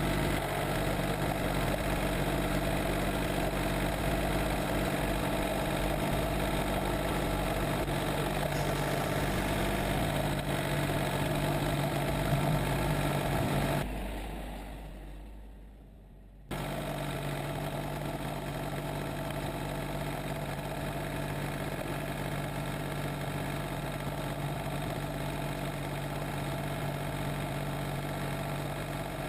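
John Deere 770 compact tractor's diesel engine running steadily. About halfway through the sound fades down over a couple of seconds, then cuts back in abruptly, a little quieter than before.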